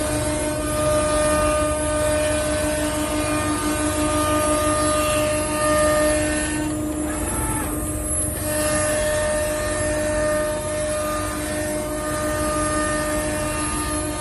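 CNC router running steadily: a whine of several steady tones over a noisy hiss. The hiss thins out for a couple of seconds about seven seconds in, then returns.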